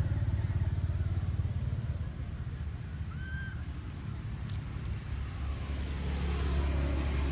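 A motor engine running with a low, steady hum that grows louder toward the end. One short, high chirp comes about three seconds in.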